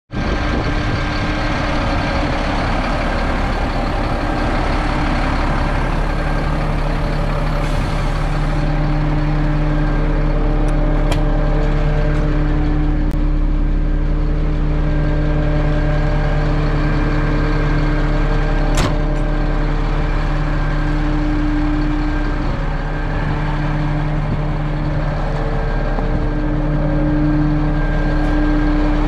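2001 Freightliner FL80 refuse truck's diesel engine idling steadily at an even pitch, with a sharp click about two-thirds of the way through.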